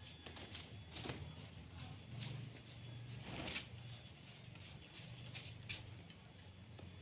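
Handheld trigger spray bottle squirting water onto caged birds to bathe them: several short, quiet spritzes at irregular intervals, the strongest about halfway through.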